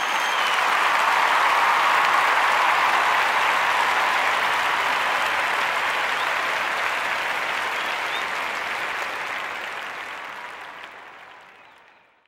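An audience applauding, a steady crowd of clapping hands with a faint whistle or two, slowly fading out to silence near the end.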